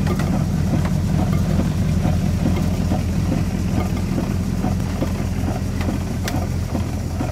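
A steady low mechanical hum like a machine or engine running at idle, with faint scattered clicks.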